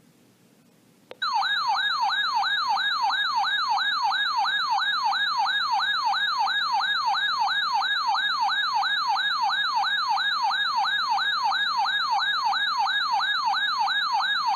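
Electronic warbling alert siren of a weather radio receiver sounding for a warning. It starts with a click just over a second in, sweeps up and down in pitch a little over twice a second, and cuts off abruptly at the end.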